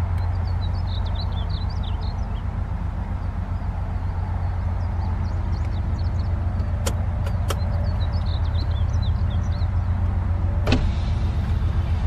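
Painted bunting singing two short, rapid warbled phrases, about six seconds apart. Under the song is a louder, steady low mechanical hum, like a motor running. A few sharp clicks come near the middle and a louder one near the end.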